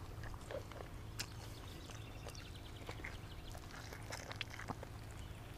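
Faint mouth clicks and smacks of a person chewing food close to a clip-on microphone, over a low steady hum.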